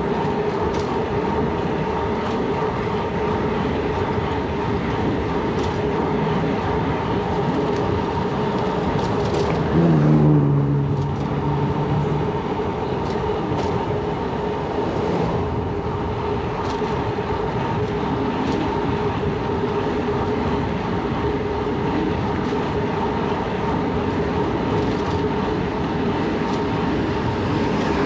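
Steady road and wind noise of a Surly Bridge Club bicycle rolling downhill. About ten seconds in, a louder tone drops in pitch and then holds for about two seconds.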